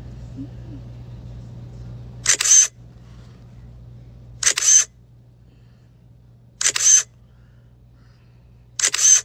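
Four camera-shutter click sound effects from a phone mugshot filter, evenly spaced about two seconds apart, each a quick double click, as the filter snaps each photo. A low steady hum runs underneath.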